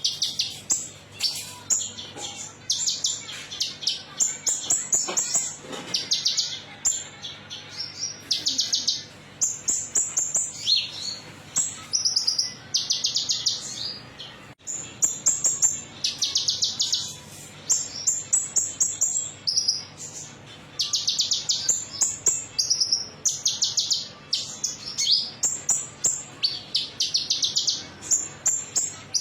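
Kolibri ninja (brown-throated sunbird) singing in rapid, high-pitched trills and chirps, phrase after phrase with barely a pause. This is a lure song, played to prompt caged birds to answer.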